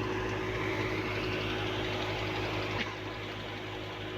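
Wheat thresher running, a steady machine hum with one sharp click about three seconds in, after which it runs a little quieter.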